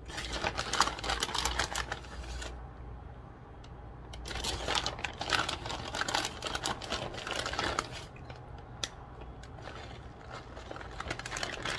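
Plastic bag of shredded cheese crinkling as it is handled and shaken out over the pan, in bursts of a few seconds: one at the start, a longer one from about four to eight seconds in, and a short one near the end.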